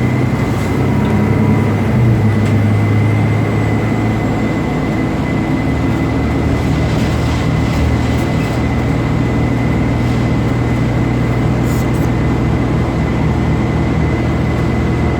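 Steady rumble and hum of a moving public transit vehicle heard from inside, with a thin, steady high whine over it.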